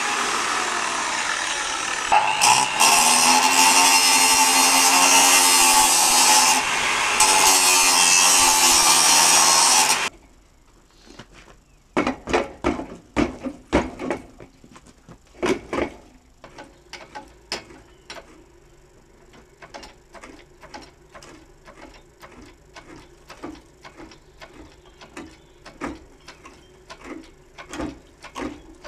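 Angle grinder cutting into a steel vehicle chassis. It runs loud for about ten seconds, its pitch sagging and recovering under load with two brief dips, then stops suddenly. Afterwards come a few knocks of metal being handled and a faint, regular ticking.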